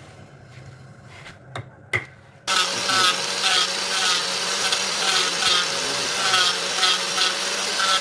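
Wood lathe running with a tool cutting into the spinning wood, starting suddenly about two and a half seconds in: a steady hum under a loud scraping that pulses about twice a second. Before it, a couple of sharp clicks.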